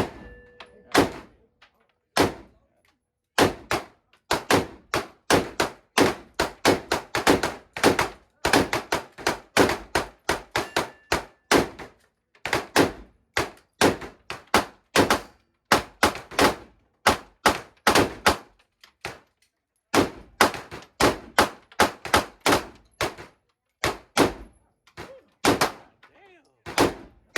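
Gunfire at a shooting range: several dozen shots in quick strings, often a fraction of a second apart, with short pauses between strings.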